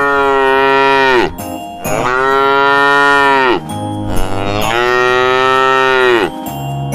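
Cow mooing: three long moos in a row, each holding its pitch and then dropping off at the end.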